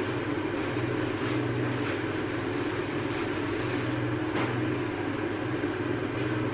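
A steady mechanical hum with a low drone that swells and fades about once a second.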